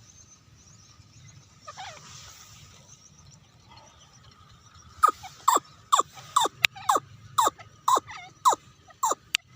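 Quail calling: after a faint call early on, a rapid run of about ten short, sharp calls starting about halfway through, each sweeping quickly downward in pitch, roughly two a second.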